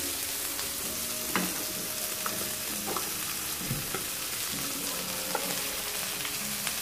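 Boiled pork pieces frying in hot fat in a wok: a steady sizzle with a few sharp pops, the fat beginning to spatter.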